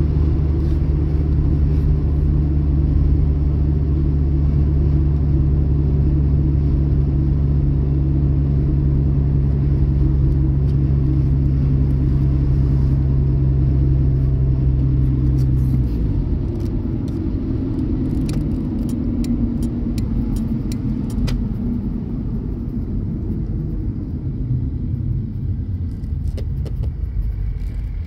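Car engine running at a steady note, heard inside the cabin from the driver's footwell. About sixteen seconds in, the steady engine tone gives way to a rougher, somewhat quieter rumble, with a few light clicks.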